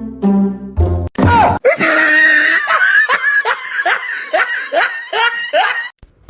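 Background piano music for about a second, then a cut to loud, high-pitched laughter: a run of repeated cries, each falling in pitch, about two to three a second, which stops abruptly near the end.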